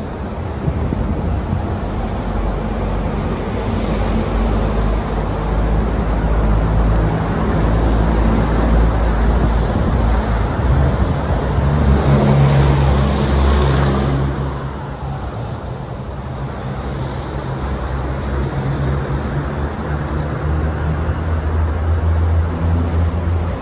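Low, steady engine drone that swells to a peak about halfway through as something passes, then eases back to a lower drone.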